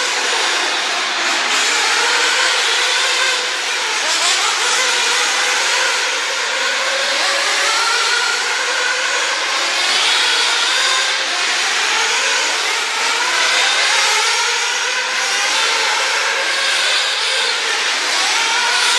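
Several radio-controlled off-road racing cars running together on a track, their motors' pitches overlapping and rising and falling as they accelerate and brake.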